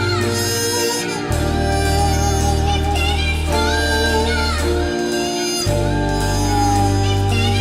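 Background hip-hop music between rap verses: a sustained melodic line with a deep bass that drops out briefly twice.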